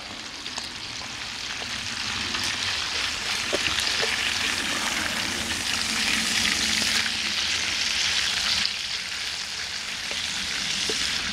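Food sizzling in a frying pan: a steady hiss with scattered small pops, growing louder over the first few seconds and then holding.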